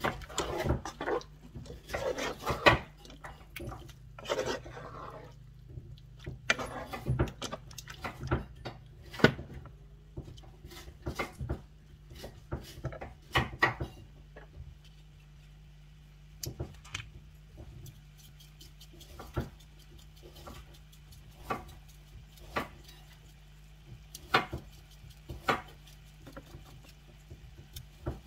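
Wooden spoon knocking and scraping against a nonstick frying pan as chunks of tofu are stirred and turned. The knocks come thick and fast in the first half, then thin out to scattered clicks, over a steady low hum.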